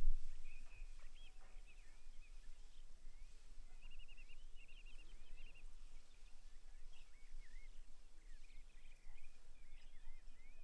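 Small birds chirping and twittering in short, high, quick calls over a low steady rumble of outdoor background noise. A brief low thump sounds at the very start.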